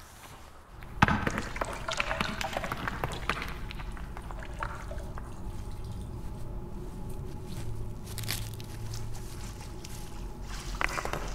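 Water trickling and dripping inside a concrete drainage culvert, starting suddenly about a second in. Near the end there is a short cluster of crackles from dry leaves.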